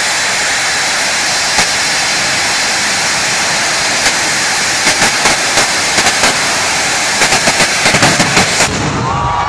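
A bang fai, a large homemade festival rocket, firing its motor on the launch tower with a loud, steady rushing hiss. From about five seconds in, sharp crackles and pops join the hiss. The hiss cuts off about a second before the end.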